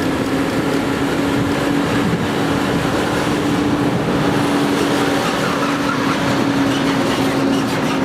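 A vehicle running with a steady hum over a loud, even rush of street noise.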